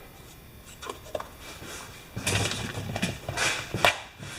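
Small parts and tools being handled at a workbench: a few scattered clicks, then irregular knocking and clatter from about two seconds in, with one sharp click just before the end.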